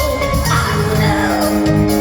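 Live band music: a rock song played at full volume, with steady bass and chords.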